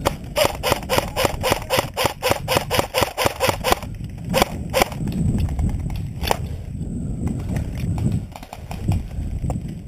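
CYMA blowback AK47 airsoft electric rifle firing a rapid full-auto burst for about four seconds, then a few single shots, followed by low rustling movement.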